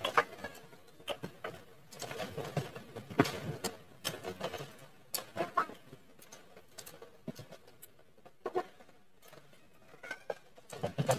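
A child eating lettuce-wrapped baby octopus: irregular chewing and lip-smacking clicks, with light taps of chopsticks on the dish.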